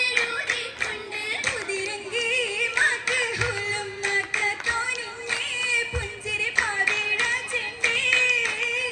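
Oppana song sung by girls' voices in an ornamented, wavering melody over a steady held tone, with sharp hand claps from the dancers keeping the rhythm.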